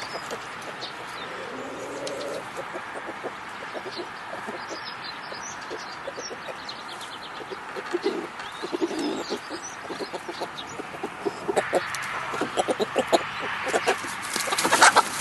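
Chickens calling with low murmuring clucks, mixed with small high bird chirps. From about halfway through, a run of short clicks and taps grows denser and louder toward the end.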